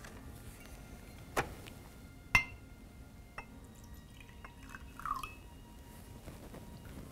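Two sharp glass clinks, the second louder and ringing, as a glass whiskey bottle and a small glass are handled on a desk. Later comes a short gurgle of whiskey being poured from the bottle into the glass.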